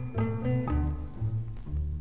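Easy-listening orchestral music from a 1961 guitars-and-strings LP: a run of short plucked low notes in quick succession, a little softer near the end.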